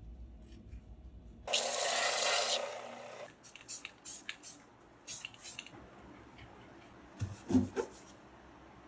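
Aerosol spray-paint can hissing in one burst of about a second, starting sharply and tailing off. Short clicks follow, and near the end a couple of soft knocks as the wooden frames are handled on the bench.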